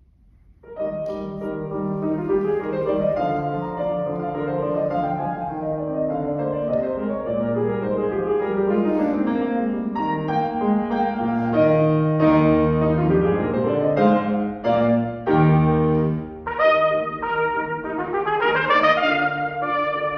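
Grand piano begins a classical trumpet concerto's opening in E-flat major under a second in, playing the orchestral introduction. A trumpet comes in near the end, with bright sustained notes and rising runs.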